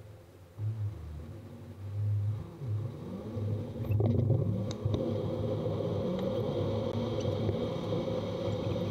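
Car engine and road rumble heard inside the cabin of a moving car, growing louder about two seconds in and again about four seconds in as the engine pitch rises. Two short knocks come about four and five seconds in.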